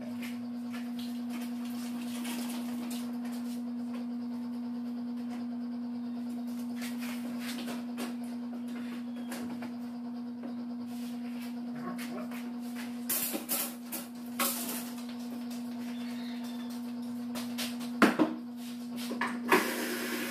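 A steady low hum, with a few knocks and clatters of plywood cabinet panels being handled, in a cluster about two-thirds in and again near the end.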